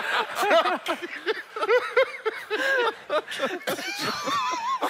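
People's voices talking and chuckling over one another in quick, broken bursts, with one voice drawn out in a wavering tone near the end.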